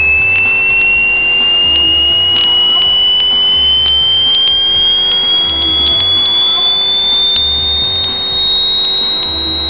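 Small coaxial speaker driven by the generator coil's output, sounding a high, steady whistle that climbs slowly in pitch as the rotor speeds up. The pitch follows the frequency the device is reaching. A faint low throb comes about every two seconds.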